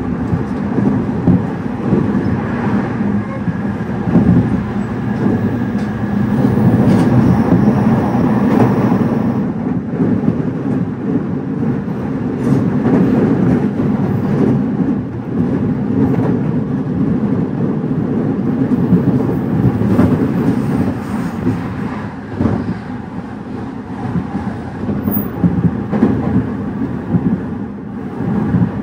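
JR 209 series electric train running, heard from inside the carriage: a steady rumble of wheels on rail and running gear. A faint high whine sounds from about two to nine seconds in, and a few sharp clacks from the rails come later.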